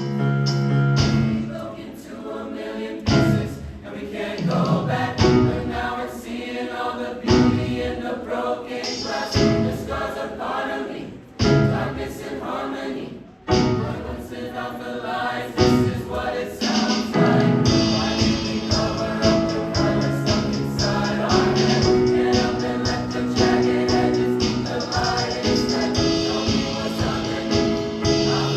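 Choir singing a pop arrangement in harmony. The first half has choppy phrases with a couple of brief breaks, and the second half has long held chords.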